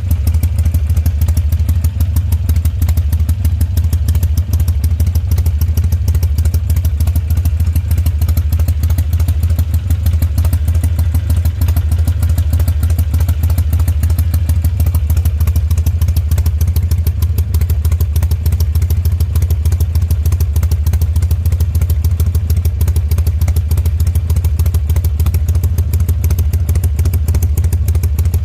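Harley-Davidson V-twin engine idling steadily with its loping 'horse-hoof' beat, the engine tuned with a Vance & Hines Fuelpak FP3.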